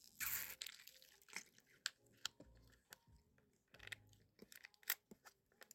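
Faint crackling and clicking of a plastic drink bottle and its cap being handled close to the microphone, with a short burst of crackling just after the start.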